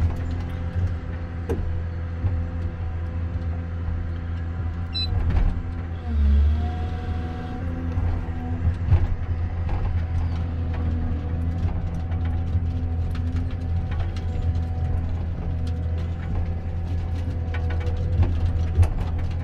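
Komatsu 931.1 forest harvester running steadily, diesel engine and hydraulics together. The engine note sags briefly under load about six seconds in, then recovers. Short knocks and cracks are scattered throughout.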